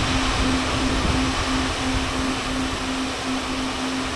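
Both Lighting cold spark machines firing, a steady loud hiss with a pulsing motor hum underneath; at the very end the hum drops in pitch and the hiss fades as they shut off.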